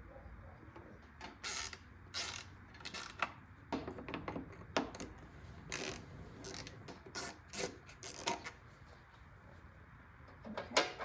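Irregular clicks, clacks and clinks of hand tools and metal parts being worked loose in a car's engine bay, a dozen or so scattered knocks with short pauses between.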